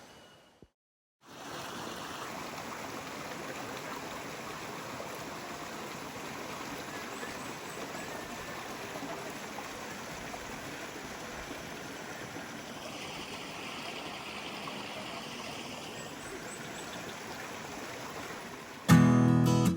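Steady rush of flowing water, fading in after about a second of silence. Acoustic guitar music cuts in near the end.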